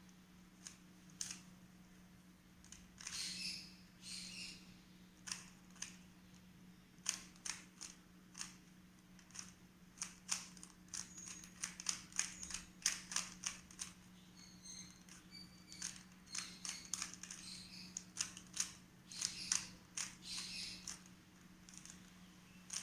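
Rubik's Cube being twisted quickly by hand: irregular clicks and short scraping rattles of the plastic layers turning, over a steady low hum.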